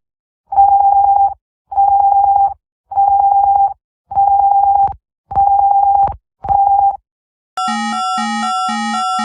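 Emergency alert alarm tones: six loud beeps of a single steady tone, each a little under a second long and about a second apart, the last one shorter. Near the end a different electronic alert sound starts, several tones sounding together over a low note that pulses about three times a second.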